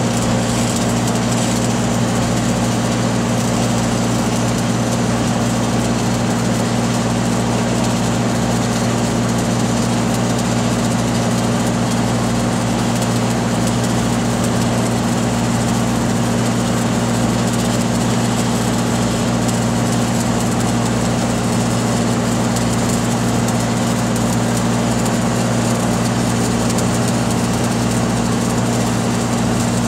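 Engine-driven welding machine running steadily at a constant pitch.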